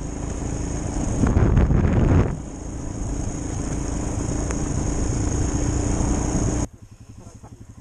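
Royal Enfield motorcycle engine running under way on a rough dirt track, with a heavy rushing noise over it, loudest about a second in; the sound cuts off suddenly near the end.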